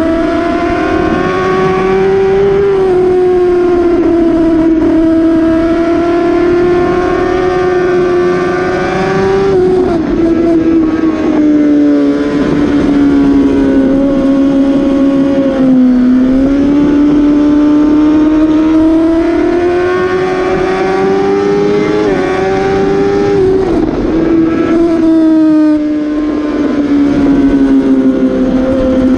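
Suzuki GSX-R 750 K7's inline-four engine running at high revs, heard from on board at track speed over wind rush. Its pitch rises and falls through the corners, with short breaks in the note at gear changes about ten seconds in and a few times near the end.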